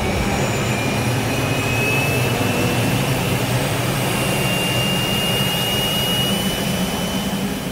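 Jet aircraft engines running at high power for takeoff, a steady roar with a thin whine that slowly rises in pitch.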